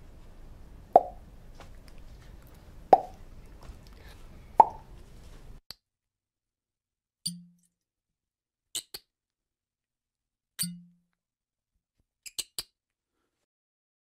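Corks being pulled from bottles. Three sharp pops come about two seconds apart over a faint hiss. Once the hiss stops, two duller, deeper pops follow, each several seconds later, with small high clicks between them.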